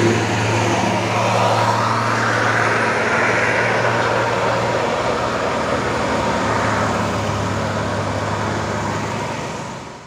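Tour bus engine running as the bus drives up past, a steady low rumble under a wider engine and road noise that swells a couple of seconds in and fades away near the end.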